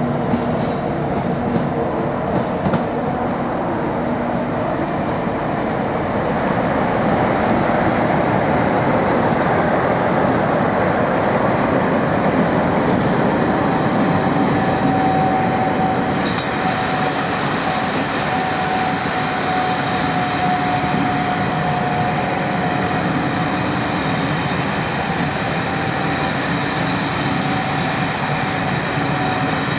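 A train running past on the track, a continuous rumble of wheels and rail that swells a little in the middle, with a thin steady high tone coming in about halfway through.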